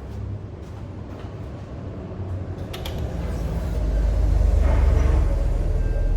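Porsche 996's M96 flat-six being started from cold: a few clicks, then the engine catches about three seconds in and runs loud and low at a raised cold-start idle.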